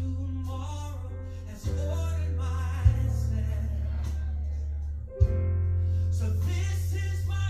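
Background music: a song with singing over a strong sustained bass and guitar.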